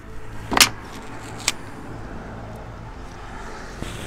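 Two short handling noises as a vinyl hood decal held with masking tape is shifted slightly into position on the hood: a rustling knock about half a second in and a fainter click a second later, over a low steady hum.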